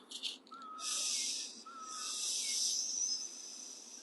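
The Taoist lung healing sound: a hissing 'sssss' breathed out through the teeth, like a snake. There is a brief hiss at the start, then two longer ones of about a second each, the second trailing off.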